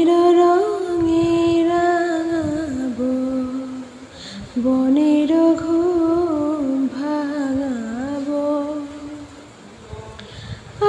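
A woman singing a Bengali song in two long phrases of held, wavering notes.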